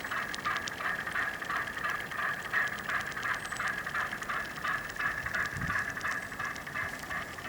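Steady, high whine from a radio-controlled model boat's motor, pulsing slightly a few times a second, with faint ticking over it.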